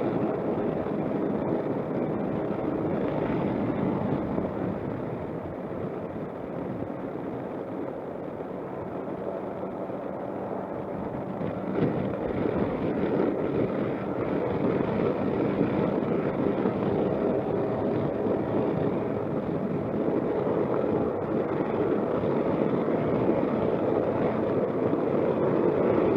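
Suzuki Burgman 200 scooter's single-cylinder engine running steadily while riding, mixed with wind and road noise. It eases off for a few seconds and picks up again about twelve seconds in.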